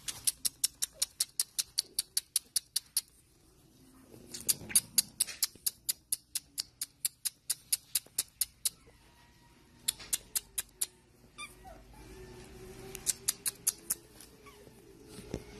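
Pug puppy sucking and mouthing a person's finger: runs of rapid clicks at about seven a second, stopping and starting several times, with a faint drawn-out whine in the last few seconds.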